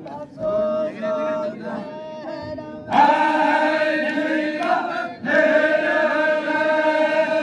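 Zikri chogan devotional chant. A single voice sings held notes, then about three seconds in a loud chorus of many voices comes in, pauses briefly, and carries on.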